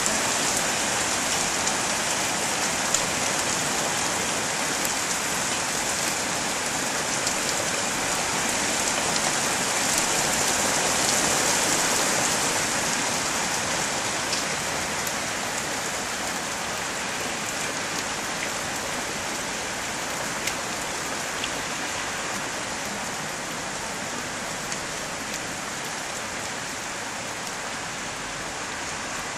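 Rain falling steadily, with a few faint sharp ticks of drops. It swells a little about ten seconds in, then eases gently.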